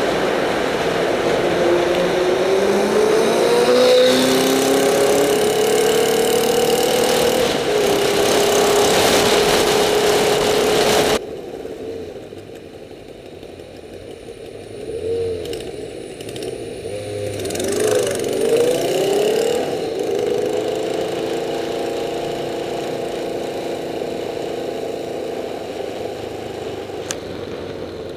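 Motorcycle engine heard from on board, accelerating with its pitch rising in steps, under heavy wind and road noise in a tunnel. About eleven seconds in, the sound cuts abruptly to a quieter street ride where the engine revs up and drops back twice before settling into a steady run.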